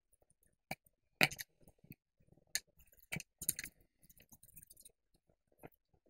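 Paper being handled on a tabletop as glued paper strips are pressed into place on a sheet: scattered sharp taps and crinkles, with a short crackling patch about three and a half seconds in.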